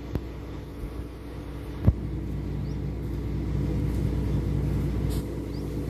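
A truck's engine running steadily with a low hum, growing a little louder after about two seconds. A single sharp knock sounds about two seconds in.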